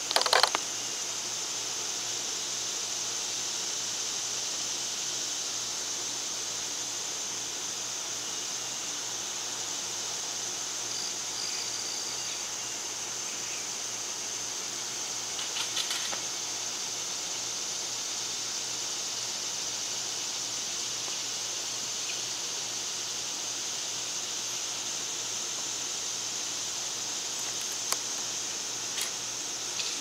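Pileated woodpecker pecking at a wire suet cage: a quick burst of sharp taps at the start, another short cluster about halfway, and a few single knocks near the end, over a steady high-pitched hiss.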